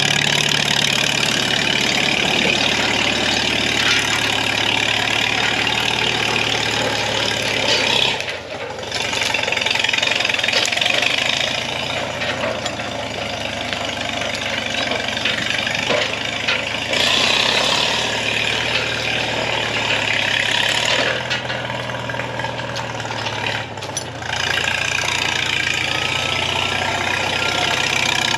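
Crawler tractor's engine running steadily, dipping briefly twice.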